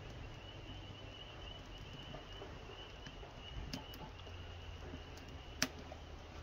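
Dry twigs and grass kindling crackling as they catch fire in a barrel barbecue's firebox: scattered faint snaps, with one sharp pop a little over five and a half seconds in.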